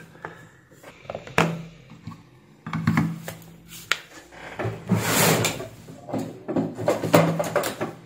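Multimeter test probes and tools being handled and set down on a workbench: scattered clicks and knocks with short bursts of scraping and rustling, the sharpest click about a second and a half in.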